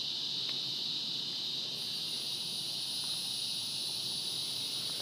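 A steady, high-pitched insect chorus, with a second, higher-pitched insect note joining about two seconds in.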